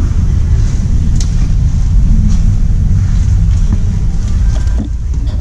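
Loud, steady low rumble on the camera microphone, like wind buffeting or handling noise, with a few faint ticks. It cuts off abruptly at the end.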